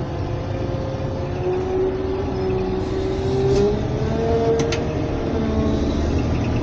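Caterpillar 120K motor grader's diesel engine running steadily under working load, heard from inside the cab, its note rising slightly partway through. Two short sharp clicks come about two-thirds of the way through.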